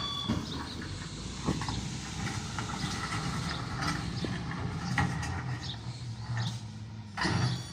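SDLG wheel loader's diesel engine running steadily, with scattered metal clanks and knocks: a loud knock right at the start and a longer clatter near the end.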